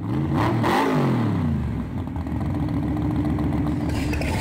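Custom Chevrolet C10 pickup's tuned engine blipped once, the pitch rising and then falling back within the first second or so, then settling to a steady idle.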